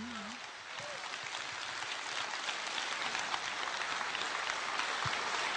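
Audience applauding, growing slightly louder, while the last wavering sung note dies away in the first second.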